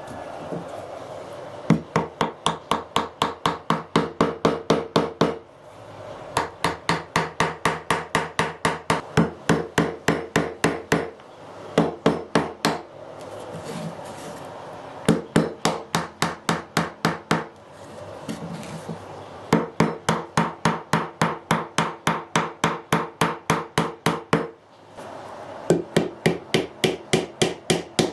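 Hammer tapping on wood in quick runs of blows, about four a second, with short pauses between runs and a slight ringing from the struck workpiece.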